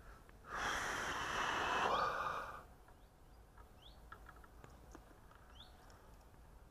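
A person's long, breathy exhale, like a heavy sigh, loud and close, lasting about two seconds from half a second in. It is followed by a quiet background with a few faint, short chirps.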